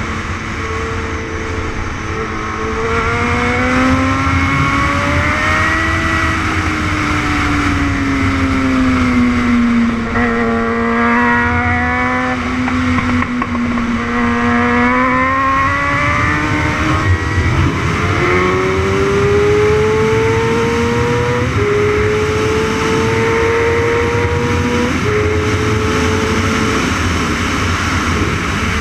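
600cc racing motorcycle engine at race pace, recorded onboard. Its pitch sinks through the corners and rises as the bike accelerates, then climbs steadily, with two sudden drops in pitch near the end as it shifts up.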